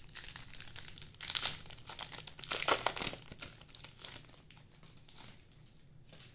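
Crinkly plastic wrapper of a trading-card pack being torn open and handled, loudest in two stretches about a second and a half in and near three seconds, then dying away.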